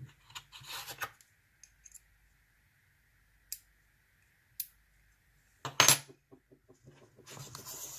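Small metal padlock parts being handled during reassembly: a scrape and cluster of clicks at the start, two single sharp clicks in the middle, and the loudest clatter about six seconds in, followed by light rattling.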